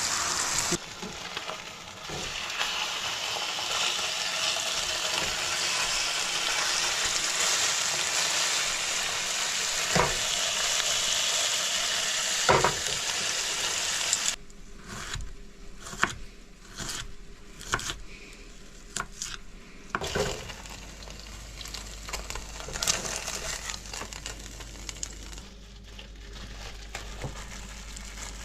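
Chicken frying in a pan, a steady sizzle with a couple of sharp clicks. About halfway through it gives way suddenly to quieter, scattered clicks and knocks of handling.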